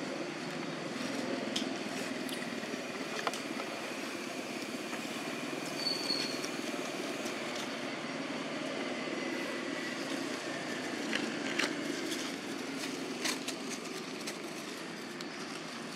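Steady low hum of motorbike engines, with scattered light clicks and rustles of dry leaves and a brief high chirp about six seconds in.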